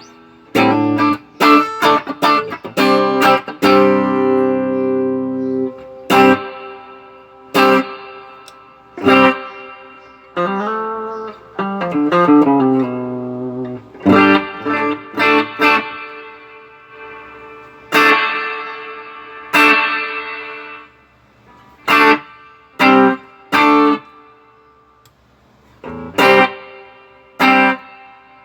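Electric guitar played through an Electro-Harmonix Holy Grail Nano reverb pedal: picked notes and chords, each left to ring out with a long reverb tail, a few with bends in pitch. The pedal is working again after a repair of failed surface-mount components.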